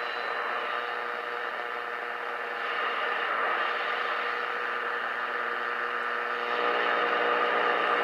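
Radio Shack DX-160 receiver's speaker playing steady static and hiss with faint steady tones, tuned to its longwave band, which works again after its solder joints were reflowed. The sound grows a little louder and fuller about six and a half seconds in.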